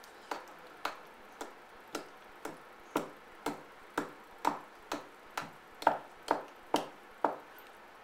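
An African grey parrot knocking its beak on a kitchen worktop in the 'head banging' game: sharp knocks about twice a second, some fifteen in all, stopping near the end.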